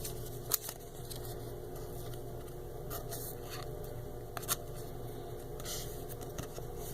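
Pokémon trading card being slid into a plastic card sleeve: faint scraping and rustling with a few short clicks over a steady low hum.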